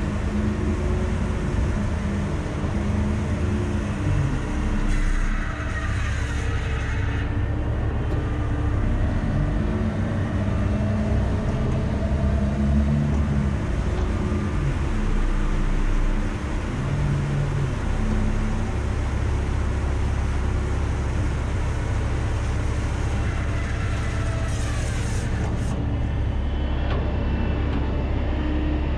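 Volvo A30C articulated hauler's diesel engine running steadily at idle, with a higher whine that rises and falls twice, about five seconds in and again near the end.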